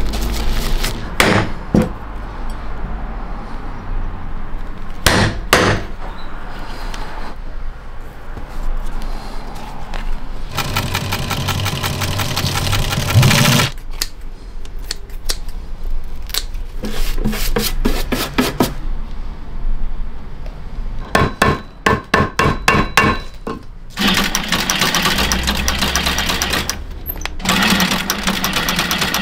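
Industrial sewing machine stitching the leather upper of a hiking boot, in runs of a few seconds of rapid, even needle chatter, with a few sharp knocks and taps in between.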